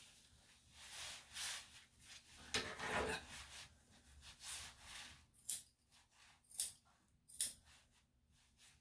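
Soft rubbing and swishing against the dog's coat, then from about halfway, three sharp snips of grooming scissors about a second apart.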